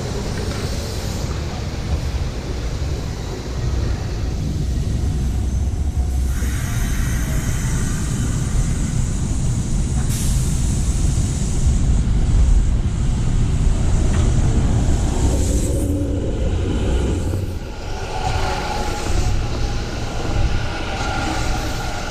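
Electric trains running on the tracks: a steady rumble of steel wheels on the rails, loudest around the middle, with a higher whine that comes in near the end as a train runs close by.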